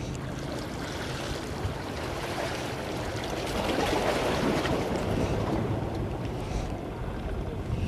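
Wind on the microphone and sea water washing against breakwater rocks, a steady rushing noise that swells for a couple of seconds in the middle.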